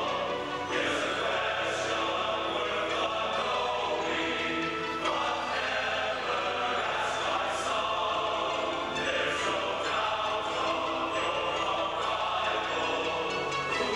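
Large men's chorus singing together in sustained, many-voiced harmony, with crisp s-sounds on the words now and then.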